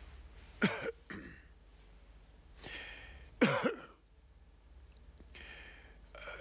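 A man's short coughs: one a little over half a second in with a smaller one just after, and a louder one about three and a half seconds in, each dropping in pitch.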